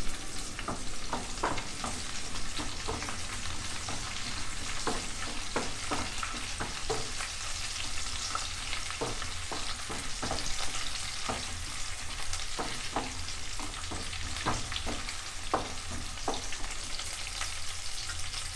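Chopped onions frying in hot oil with whole spices and bay leaves, sizzling steadily while they brown, with repeated clicks and scrapes of a utensil stirring them in the pan.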